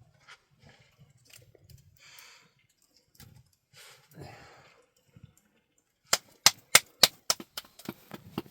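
Faint rustling, then a quick run of sharp knocks or clicks, about three a second, starting a little past the middle.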